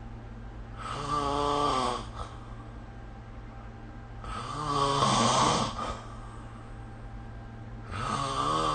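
Snoring: three snores, each a second or two long, coming about every three and a half seconds, over a steady low hum.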